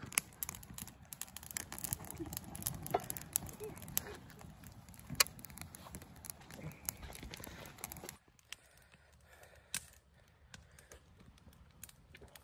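Wood campfire crackling, with many irregular sharp pops and snaps. About eight seconds in it cuts off abruptly to a much quieter stretch with only a few faint clicks.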